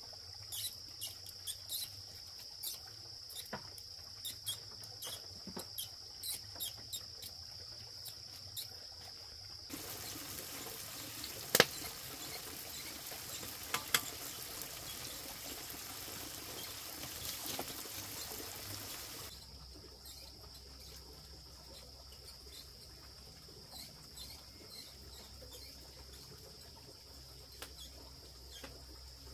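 Insects trilling in a steady high-pitched chorus with scattered ticks. About ten seconds in, this gives way for several seconds to a steady hiss with two sharp knocks, then the insect chorus returns.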